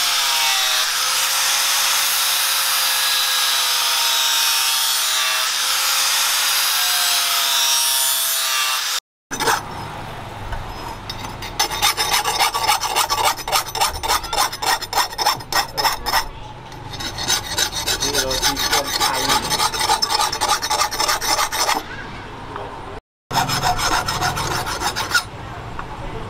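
Angle grinder with a flap disc grinding the edge of a steel sickle blade, a steady high-pitched whine. After a cut about a third in, the blade is swept back and forth against the spinning disc, a rhythmic rasping at about three strokes a second with short breaks.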